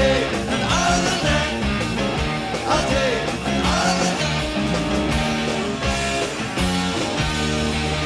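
Live rock band playing, heard from a cassette tape recording: electric guitars, bass and drums, with notes sliding in pitch during the first half.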